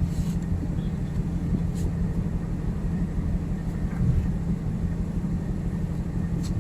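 Steady low drone of a ship's machinery, a constant hum, with a few faint ticks over it.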